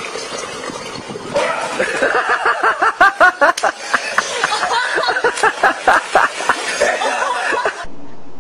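A person laughing hard in quick, repeated bursts, starting about a second in and cutting off shortly before the end.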